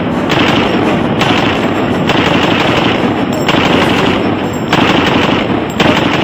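Heckler & Koch G36K carbine, chambered in 5.56×45 mm, firing fully automatic bursts. The bursts come one after another, a fresh one roughly every second, with the echo of each filling the gap to the next.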